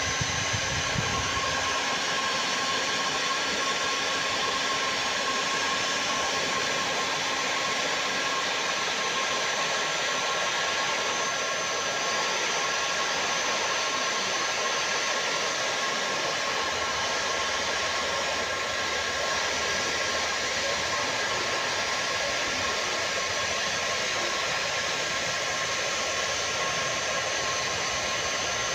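Hot air gun for plastic welding blowing steadily: an even rush of air with a constant motor whine, holding level throughout.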